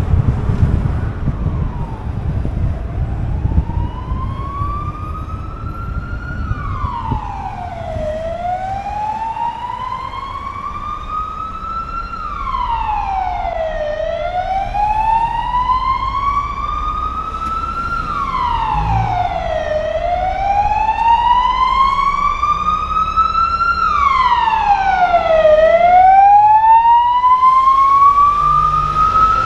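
Emergency vehicle siren on a slow wail: each cycle rises in pitch for about four seconds, then drops quickly, repeating about every six seconds and growing louder toward the end. Low wind and road rumble underneath near the start.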